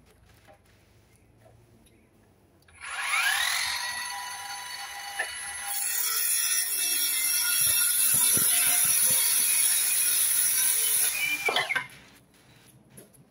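Handheld circular saw spinning up with a rising whine about three seconds in, then cutting through a treated pine post for about five seconds, and winding down with a falling whine near the end.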